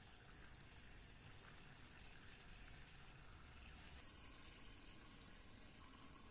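Water from a garden hose pouring into a large metal pot of fresh mint and dragonhead leaves: a faint, steady splashing.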